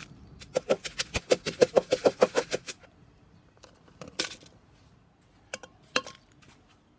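A pestle pounding dried chillies and garlic in a clay mortar: a quick run of about a dozen ringing strikes lasting two seconds. Tomatoes are then tipped into the mortar about four seconds in, and a metal spoon clinks against it near the end.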